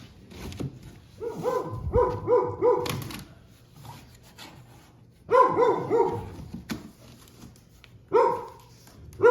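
A dog barking in short quick yaps: a run of four, then three, then a single bark near the end.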